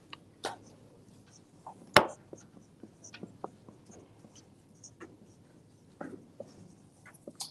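Red marker writing on a white board surface: faint scratching and light taps as the strokes go down, with one sharp click about two seconds in.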